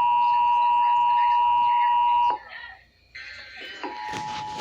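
Emergency Alert System attention signal, a loud steady two-tone alarm, cuts off abruptly about two seconds in. After a brief near-silent gap, a quieter steady tone comes in near the end, with a short click at the very end.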